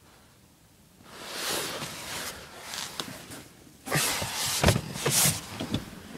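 Rustling and handling noise as a person climbs out of a parked car, with several sharp knocks and clicks from about four seconds in.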